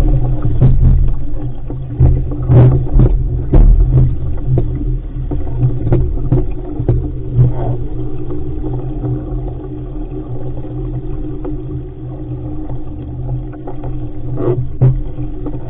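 Wind buffeting a deck-mounted camera's microphone as an RS500 dinghy sails fast, with water rushing along the hull. Sharp slaps of waves and spray come often in the first half and again a couple of times near the end.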